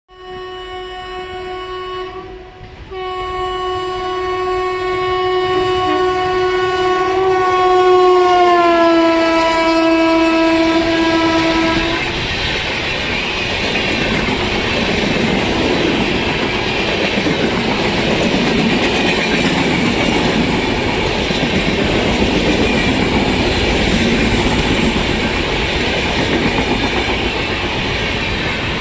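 WAP-7 electric locomotive's horn sounding, a short blast and then one held for about nine seconds, its pitch sliding down as the locomotive passes. The horn stops and the express's coaches roll past with a steady rail noise.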